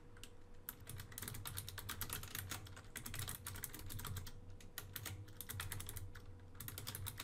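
Typing on a computer keyboard: quick runs of light keystroke clicks with short pauses between them.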